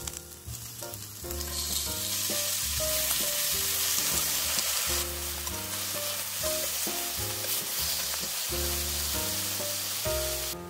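Slices of beef chuck flap sizzling as they sear in a hot cast-iron skillet greased with beef fat. The sizzle swells about a second in and cuts off suddenly near the end, over soft background music.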